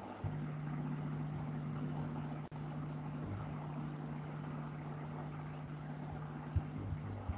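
Steady low mechanical hum with a hiss over it, carried through an open microphone on an online call; it cuts out for an instant about two and a half seconds in, and two short knocks come near the end.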